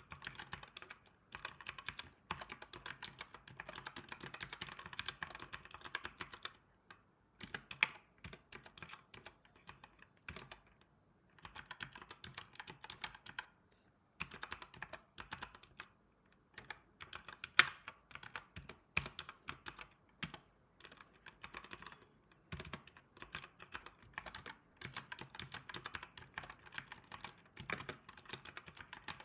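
Typing on a computer keyboard: runs of quick key clicks broken by short pauses, with a couple of louder single keystrokes.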